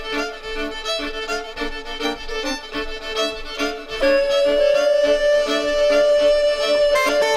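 Instrumental background music: quick repeated notes for about the first four seconds, then a long held note.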